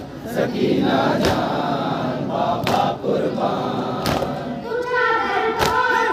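A crowd of male mourners chants a noha lament in unison, with sharp unison chest-beating (matam) strikes about every second and a half. Near the end a single young voice carries the melody over the loudspeaker.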